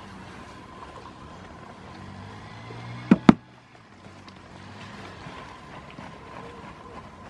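Two sharp knocks in quick succession about three seconds in, a goat kid striking a cardboard box with its head or hooves, over a steady low hum.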